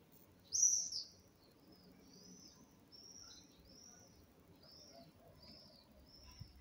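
Small songbird chirping: one loud, sharp chirp about half a second in, then a run of shorter, high, arched chirps about two a second.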